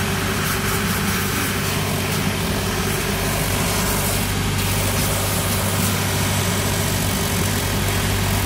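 Cobbler's shoe finishing machine running with a steady hum while the built-up leather heel is ground against its rough wheel, taking off the excess material.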